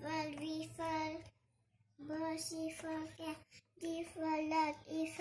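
A young girl chanting the letters of the alphabet one by one in a sing-song voice, each letter drawn out, with a brief pause about a second in.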